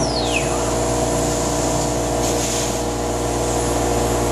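Thermwood CNC router and its shop equipment running with a steady mechanical hum made of several held tones. A high whine falls steeply in pitch and dies away about half a second in.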